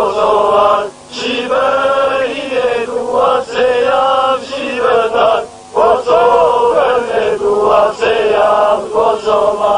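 A group of men singing a song together in unison, loud, in long held phrases broken by two short pauses, about a second in and past the middle.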